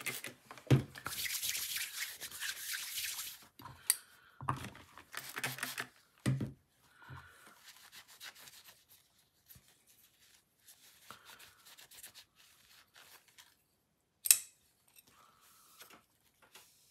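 Rubbing and wiping as oil is cleaned off, loudest for a couple of seconds near the start and again briefly after, then quieter handling. A few sharp clicks and knocks come through, the loudest one about 14 seconds in.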